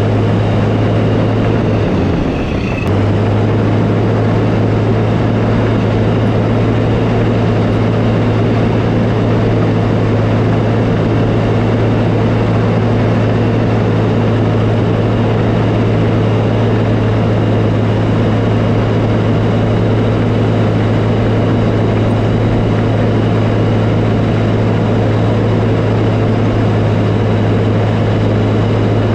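Diesel engine of a tracked earthmoving machine (crawler loader or dozer) running steadily at working revs. The revs dip briefly about two seconds in, then come back up.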